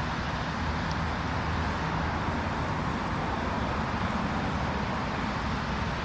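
Steady hum of distant city road traffic: a continuous low rumble with a hiss over it.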